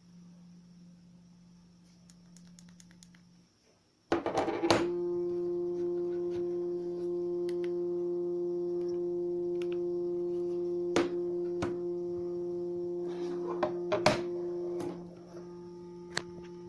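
Mobile phone alert tone: a steady held electronic tone with several overtones, starting suddenly about four seconds in after a faint low hum, and dropping in level near the end, with scattered clicks.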